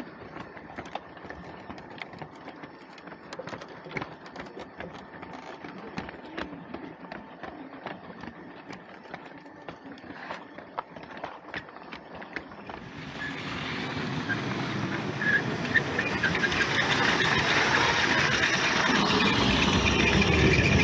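Scattered light clicks, then a train's running noise that swells in about thirteen seconds in and grows steadily louder toward the end, as if approaching.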